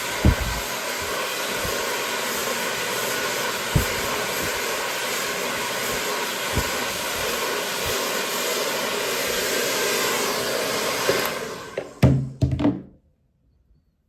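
Ionic salon hair dryer blowing steadily on high, with a few soft low thumps from handling. About twelve seconds in it winds down with a couple of knocks as it is switched off, leaving near silence.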